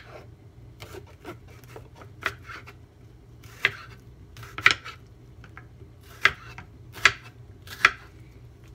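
Kitchen knife chopping bitter melon strips on a wooden cutting board: about ten sharp, irregularly spaced knocks of the blade meeting the board.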